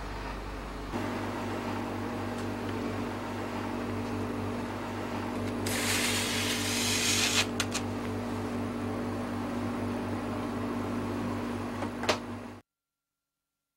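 A steady machine hum with a loud hiss lasting about a second and a half about six seconds in, a few sharp clicks just after it and another near the end; the sound then cuts off abruptly.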